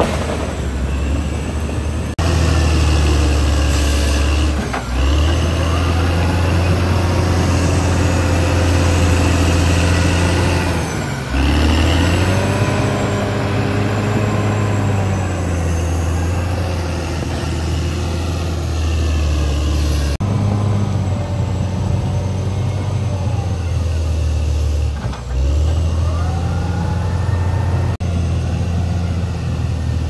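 Caterpillar D6R XL crawler bulldozer's diesel engine working under load as it pushes soil. The engine note sags in pitch and recovers a few times as the blade bites in.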